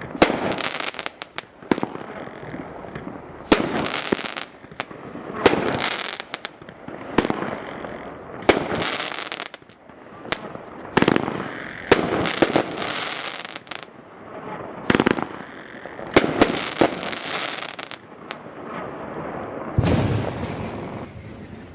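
Dominator 'S.W.A.T.' consumer fireworks cake firing shot after shot: a sharp bang every second or two, each trailing off before the next, about a dozen in all.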